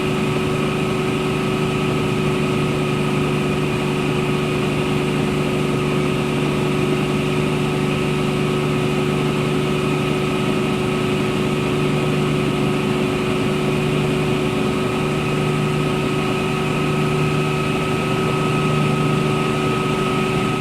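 Helicopter in flight heard from inside the cabin: a steady, unchanging engine drone with a constant high whine above a low hum.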